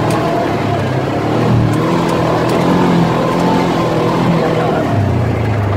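Off-road vehicle's engine running as it drives along a sandy trail, heard from inside the cab, its pitch rising and falling a little with the throttle.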